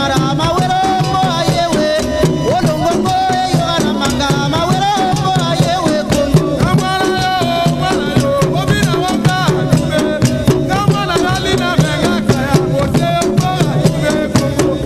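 Dance music: a song with a singing voice over a busy, fast shaker-rattle rhythm and drums.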